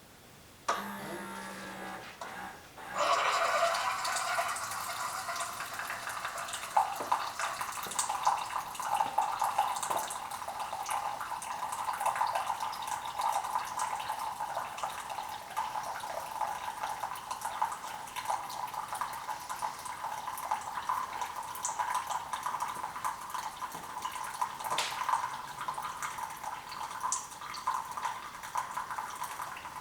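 Keurig K45 Elite coffee brewer in its brew cycle: a short hum as the pump starts, then from about three seconds in hot coffee streaming steadily into the mug with gurgling and sputtering.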